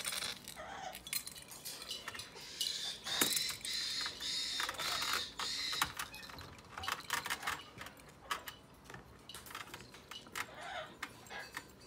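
Yellow-crowned Amazon parrot chicks giving a run of high, repeated begging calls from about two and a half to six seconds in, over scattered light clicks and rattles of their claws scrabbling on the wire mesh floor.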